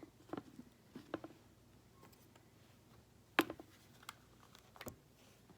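Light clicks and taps of plastic pet-fountain parts being handled as the filter is fitted, with one sharper click about three and a half seconds in.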